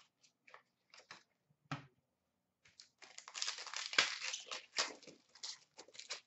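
Plastic-foil wrapper of a trading-card pack crinkling and crackling as it is handled and torn open, a dense rustle starting about three seconds in. A few light clicks of cards being handled come before it.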